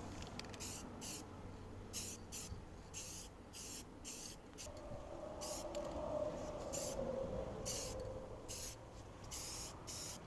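Aerosol can of Krylon flat black spray paint hissing in a string of short bursts, about one or two a second, as a light coat is misted on.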